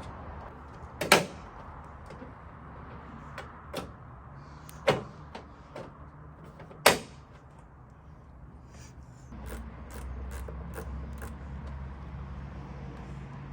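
Plastic trunk trim panel and its clips being pressed and snapped back into place: a series of clicks and knocks, three of them sharp and loud. A steady low rumble comes in about nine seconds in.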